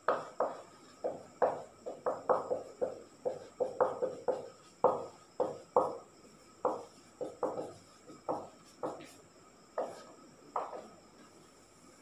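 Marker pen writing on a whiteboard: a quick, irregular run of short separate strokes, about three a second, stopping about a second before the end.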